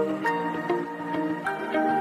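Background music: a gentle instrumental with held notes that change about twice a second.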